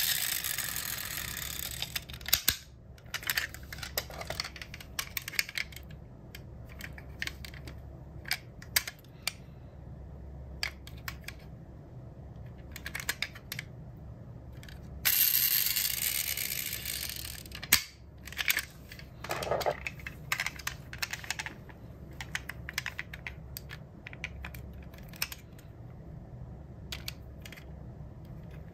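Diecast metal model cars being handled: many small clicks and taps from doors, wheels and plastic parts. Twice, once at the start and once about halfway through, a pull-back motor whirs as the wheels spin freely and runs down over two to three seconds.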